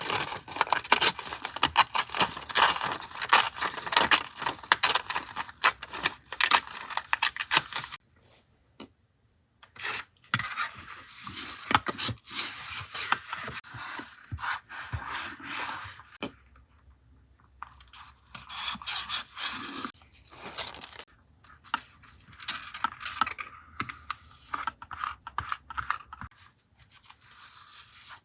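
Paper being handled for a journal collage: dense crinkling and tearing for about eight seconds, then a short pause, then softer rubbing and scraping of paper on paper.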